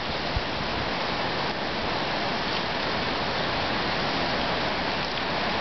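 Heavy wind-driven rain from a hurricane feeder band falling steadily, an even hiss of rain on the street, yards and roofs.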